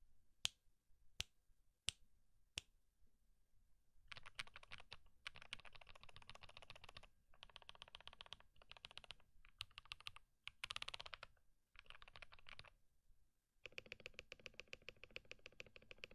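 Typing on an EPOMaker TH68 65% mechanical keyboard fitted with EPOMaker Sea Salt switches: four single keystrokes a little under a second apart, then, after a pause, bursts of fast typing broken by short gaps.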